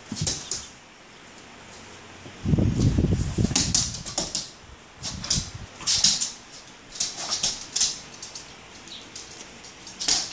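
A small dog scratching and pawing at a fabric dog bed and cushion, chasing a laser dot: repeated short scratchy rustles and claw clicks, with a heavier low rustling thump about two and a half seconds in.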